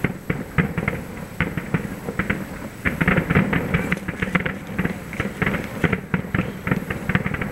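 Distant fireworks going off: a rapid, irregular run of bangs and crackling reports, densest about three seconds in.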